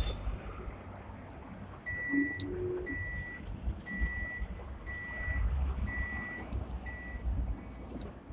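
Six short, high electronic beeps, evenly spaced about one a second, over the low running rumble of a Hong Kong seventh-generation tram, heard from inside its lower deck.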